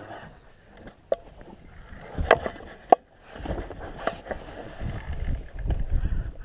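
A few sharp knocks and clunks of gear and the camera being handled in a small boat, followed by low rumbling handling or wind noise on the microphone.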